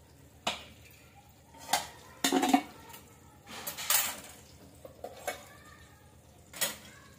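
Stainless steel tiffin containers clinking and clattering as they are handled and stacked: about six separate knocks spread over the few seconds, the loudest a short rattling run about two and a half seconds in.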